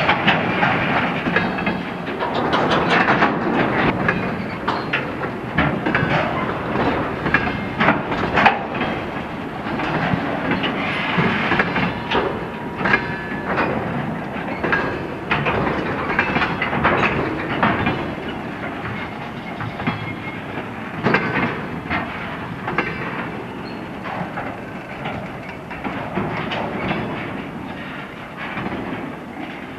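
A freight train of tank cars rolling past, its wheels clattering over the rail joints with repeated knocks, slowly fading toward the end.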